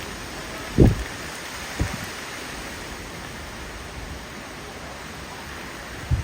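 Steady rush of a windstorm, with gusts buffeting the microphone in short low thumps, the strongest just under a second in and another near the end.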